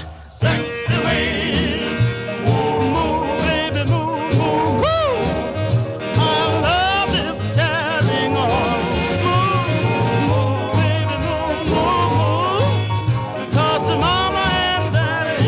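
Music: a song with a singing voice that swoops and wavers in pitch over a steady bass beat.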